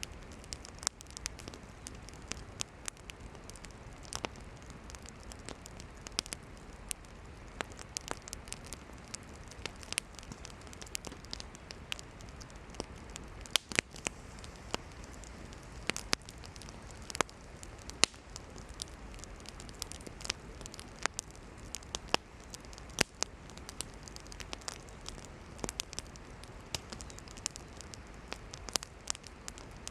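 Campfire of burning firewood crackling, with irregular sharp pops and snaps, a few louder ones, over a steady low hiss of the flames.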